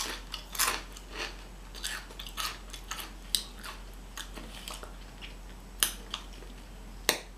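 A person crunching and chewing chips close to the microphone: a quick run of crunches in the first second or so, then scattered crunches as she chews, with two loud fresh bites about six and seven seconds in.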